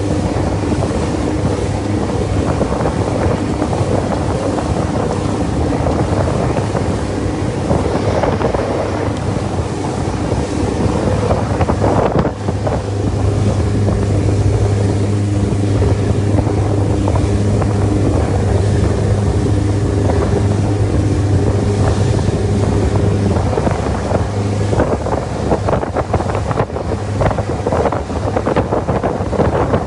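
Boat engine running steadily, with wind rushing across the microphone; the engine drone grows stronger about twelve seconds in.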